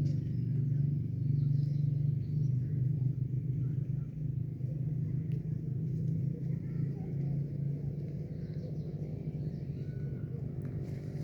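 A steady low rumble with faint bird chirps above it; the rumble eases off slightly over the last few seconds.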